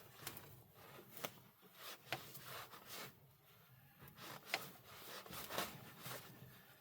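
Faint, scattered small clicks and rubbing as hands handle a battery ground cable and its clamp hardware.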